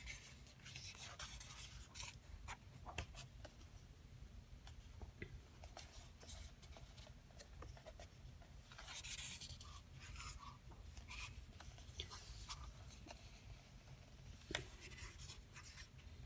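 Faint rustling and rubbing of paper as a hand slides over and turns the pages of a softcover booklet, with scattered light ticks.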